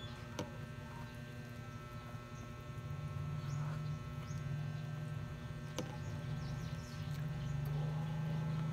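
Steady low electrical hum that grows a little louder a few seconds in, with a couple of faint clicks, one near the start and one about six seconds in.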